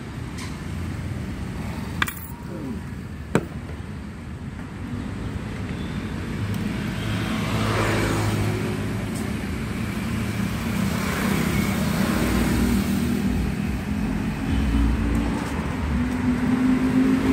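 Road traffic running and passing, with a motor vehicle's engine growing louder through the second half. Two sharp taps come in the first few seconds.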